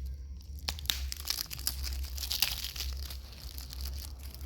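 Plastic shrink-wrap being peeled and torn off a 4K Blu-ray case, a run of irregular crinkling and crackling that thickens about a second in.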